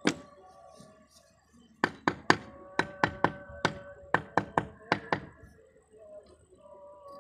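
Clay roof tile tapped with a tool handle to bed it into wet mortar: one sharp knock, then after a pause about a dozen quick sharp knocks over some three seconds.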